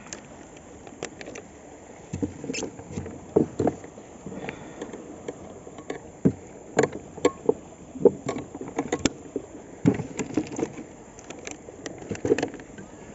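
Irregular clicks, knocks and rustles of gear being handled close to the microphone among loose rocks, with a couple of louder knocks about seven and nine seconds in.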